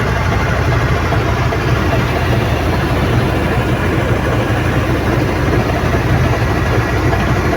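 Dump truck's diesel engine running steadily at low revs, a constant low hum.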